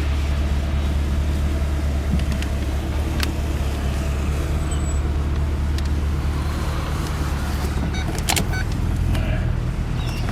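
Holden SS Commodore's 6.0-litre V8 running steadily with a low, even hum, heard from inside the car. It is running on freshly fitted D.O.D. lifters. A few sharp clicks come about eight seconds in.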